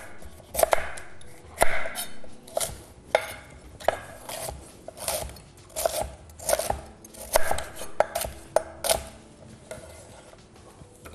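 Kitchen knife slicing a fennel bulb into wedges on a wooden cutting board: a series of sharp knocks as the blade cuts through and strikes the board, about one or two a second, stopping about nine seconds in.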